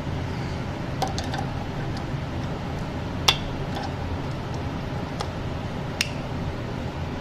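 Scattered light metallic clicks and taps of small metal parts and tools being handled during work on an espresso machine's boiler fittings, a handful over several seconds, the sharpest a little past three seconds and at six seconds, over a steady low hum.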